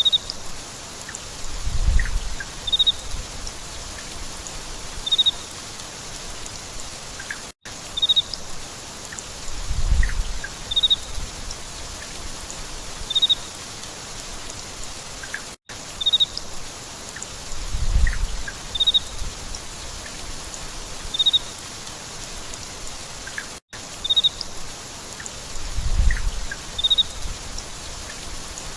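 Steady rain falling, with short high bird chirps about three times every eight seconds and a brief low rumble once in each eight seconds. The same eight-second stretch repeats over and over, each repeat marked by a split-second dropout.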